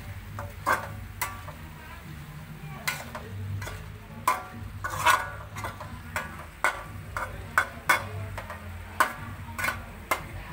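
Metal utensils clinking and scraping against cookware or dishes in an irregular series of sharp strikes, some with a short ring, over a steady low hum.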